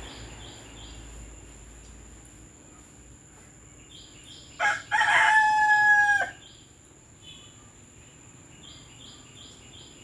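A rooster crows once about halfway through: a short first note, then a long held note of over a second. Faint, quick high chirps of small birds come before and after it.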